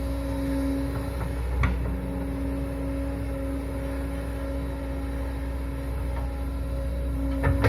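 Heavy diesel earthmoving machinery running steadily with a low rumble and a held engine tone, a single sharp clank about a second and a half in, and a few metallic clanks near the end.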